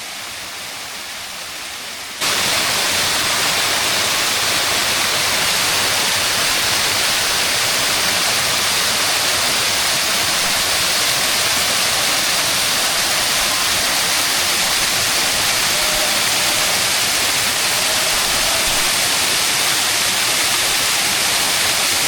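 Machine Falls, a 60-foot waterfall, making a steady rush of falling water. About two seconds in it suddenly becomes much louder and then holds steady.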